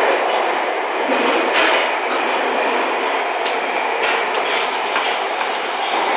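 MARTA Breda CQ312 rapid-transit railcar running along the track, heard from inside the car: steady running noise with a few sharp clicks from the wheels and rails.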